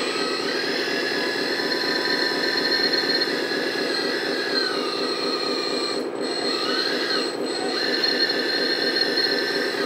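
The small electric hydraulic pump of a 1/14 RC truck crane runs steadily as the crane boom is raised, a buzzing whine with high steady tones. The pitch wobbles briefly a couple of times partway through.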